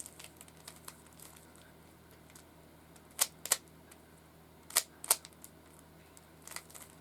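A Rubik's cube being turned by hand: the layers snap round with sharp plastic clicks, loudest as two quick pairs in the middle, with lighter clicks around them.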